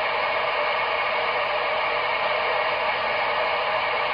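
Steady, loud hiss of FM static from the speaker of an SDR receiver tuned to a UK FM CB channel (27.861 MHz, narrowband FM) while no station is transmitting, with the squelch open.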